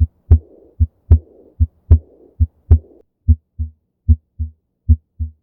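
Heart sounds, a steady lub-dub at about 75 beats a minute. For the first three seconds a soft blowing whoosh fills the pause after each second sound: the early diastolic murmur of aortic regurgitation, blood leaking back through an aortic valve that does not close fully. After that the beats come clean with no murmur, as in a normal heart.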